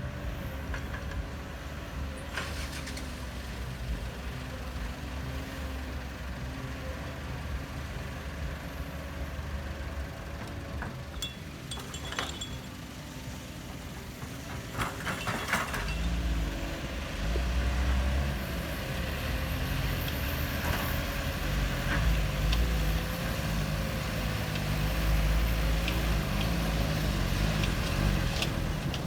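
Construction vehicle's engine running. It grows louder about halfway through, with its pitch rising and falling as it works, and there are a few sharp knocks shortly before.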